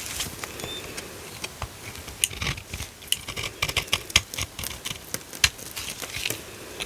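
Dry soap crackling and clicking as it is handled, with crisp irregular clicks several times a second.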